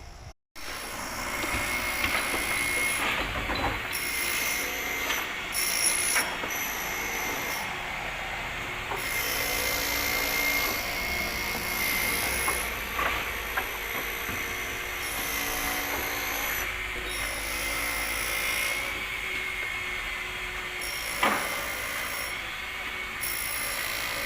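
Construction-site noise: machinery and power tools running steadily, with scattered sharp knocks, the loudest about 21 seconds in.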